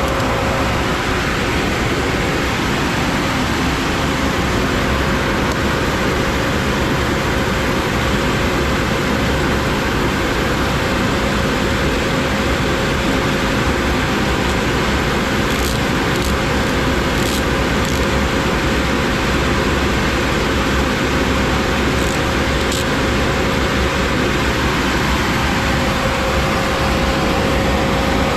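Two-head 36-inch wide belt sander running steadily: an even, loud whir of motors and abrasive belts with a steady hum, and a few faint ticks in the second half.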